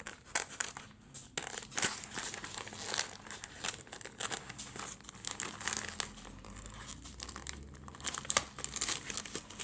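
Wrapping crinkling and rustling in the hands with many small irregular crackles as it is carefully cut open.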